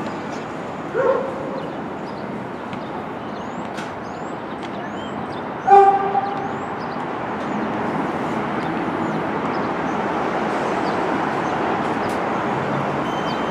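New York City subway train running, a steady noise that builds from about seven seconds in and holds. A dog barks briefly about a second in and again, louder, near six seconds, and small birds chirp faintly.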